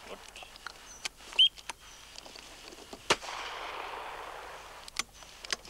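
A shotgun fires once about three seconds in, its report rolling on for over a second. A loud sharp knock comes a second and a half earlier, and lighter clicks follow near the end.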